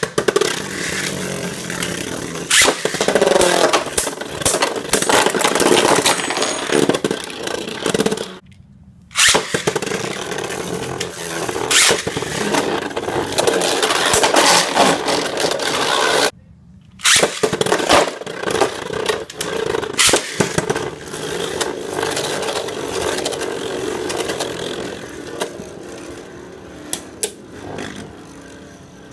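Beyblade Burst spinning tops launched into a plastic stadium, spinning, scraping and clashing with a rattling grind and sharp clicks of impact. It comes in three stretches broken by short silences, and the last one dies down near the end to a few scattered clicks as the tops slow.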